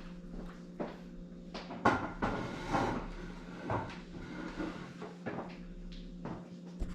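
Scattered light clicks and knocks of objects being handled, the loudest about two seconds in, over a steady low hum.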